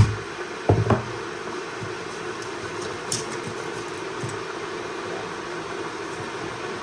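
A steady mechanical hum, with a few short sharp knocks about a second in and again near three seconds.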